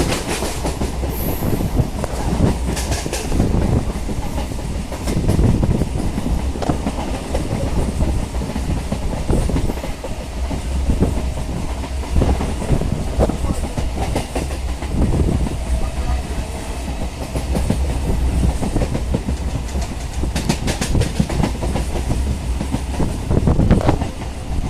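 Running rumble of an EMU local train heard from on board, with the rhythmic clickety-clack of wheels over rail joints repeating through the whole stretch.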